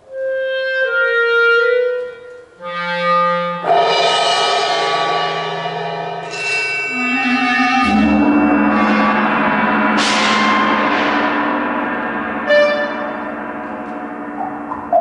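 Clarinet and percussion duo playing contemporary concert music: the clarinet holds and shifts between sustained notes while struck metal percussion rings out, with sharp ringing strokes about four and ten seconds in and a low rumble entering about eight seconds in.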